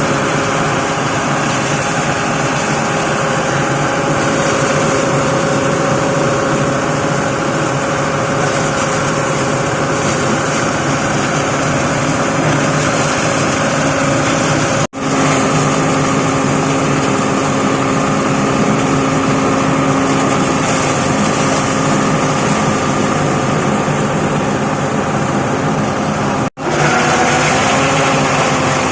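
Plastic shredding machine running steadily: a loud, even mechanical drone with several held tones. The sound breaks off for an instant twice, about halfway through and near the end.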